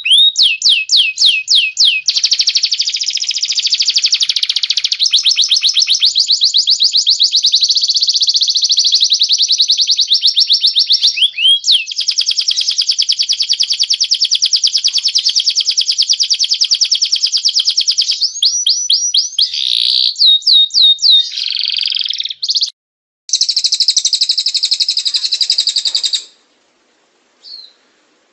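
Cage-bird song of a cililin and a domestic canary: loud, fast trills of rapidly repeated sweeping notes, switching from one trill type to another every few seconds. The song breaks off briefly about 23 seconds in and stops about 26 seconds in.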